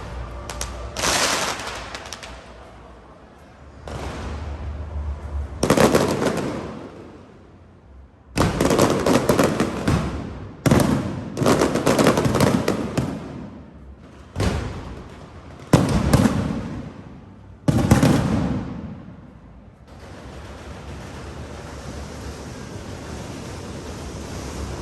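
Aerial fireworks shells bursting overhead: a string of loud booms, each trailing off in crackle, coming thick and fast in the middle. The bursts stop a few seconds before the end, leaving a steady background hiss.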